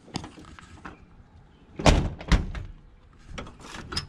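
Steel door of a square-body Chevy pickup being worked: a few light clicks from the handle and latch, then two heavy clunks about half a second apart, about two seconds in.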